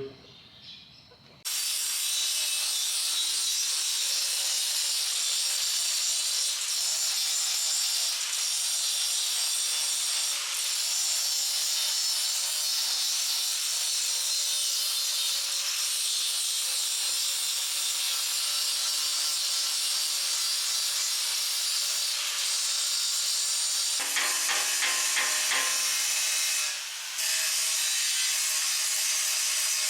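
Angle grinder grinding down fresh welds on a steel bumper bar, running steadily with a coarse abrasive hiss; it starts abruptly about a second and a half in and briefly eases off near the end.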